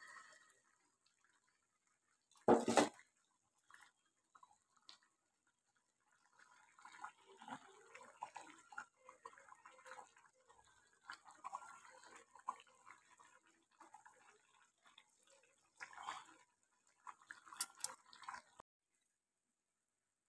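Faint irregular crackling and bubbling from biryani rice simmering in a clay pot, with one sharp knock about two and a half seconds in and a few louder clicks near the end.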